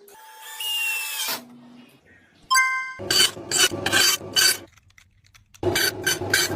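A hand tool scraping back and forth in a steady rhythm, about three strokes a second, each stroke with a faint ringing tone; the strokes start about three seconds in, pause briefly, and resume near the end.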